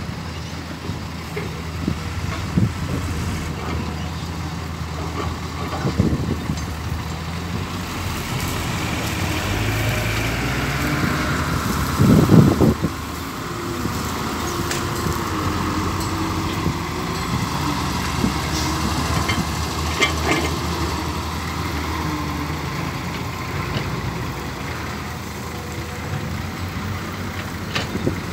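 Diesel engine of an 8-ton dump truck running as it drives along a dirt track. The engine rises in pitch and grows louder as the truck comes close about halfway through, with a brief loud burst as it passes nearest, then settles into a steady drone as it pulls away.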